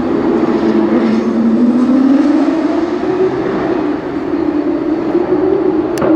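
Formula 1 car's turbo V6 engine running loud as the car passes; its pitch drops over the first two seconds, then climbs steadily as it pulls away. A single sharp click near the end.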